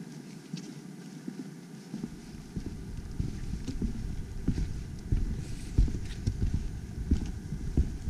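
Footsteps on a wooden boardwalk: irregular hollow knocks of boots on the planks. They start about two seconds in and grow louder.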